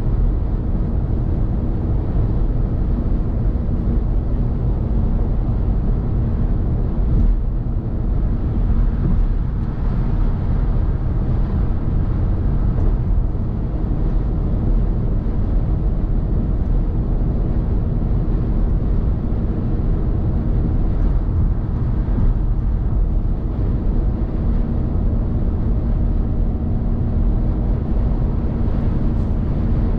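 Car driving at motorway speed: a steady low drone of tyres on the road, engine and wind, with a faint hum holding one pitch throughout.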